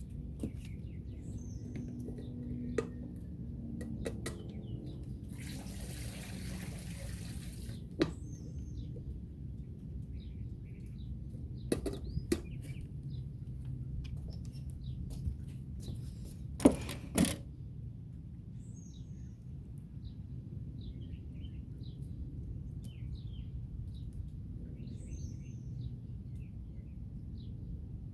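Small birds chirping now and then over a steady low outdoor rumble, with scattered sharp clicks and knocks, a louder pair about two-thirds of the way in, and a hiss lasting about two seconds some five seconds in.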